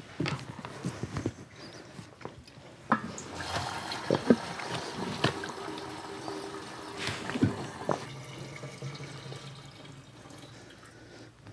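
Liquid trickling and dripping, mixed with scattered light clicks and knocks that are busiest midway and then die down.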